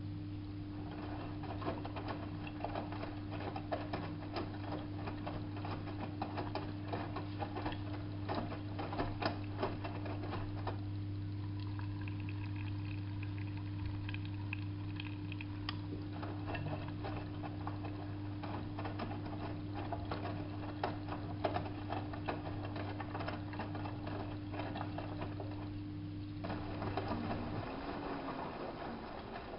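Hanseatic HWM814A3D front-loading washing machine tumbling a wash load. The drum motor hums steadily while the wet laundry splashes and patters inside the drum. The splashing stops twice as the drum pauses, once for several seconds in the middle and again near the end, and the motor hum stops shortly after the second pause.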